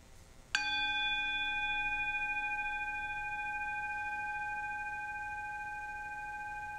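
Singing bowl struck once with a wooden striker about half a second in, then ringing on with a clear tone and higher overtones that fade slowly.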